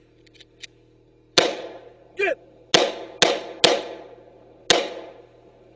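Five gunshots, each with a ringing tail: one about a second and a half in, a quick run of three, then a last one about a second later. A short falling sound comes between the first and second shots.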